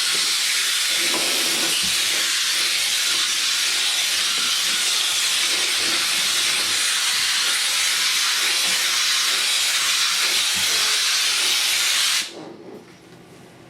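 Kärcher SC3 steam cleaner jetting steam in a steady hiss, cutting off suddenly about twelve seconds in.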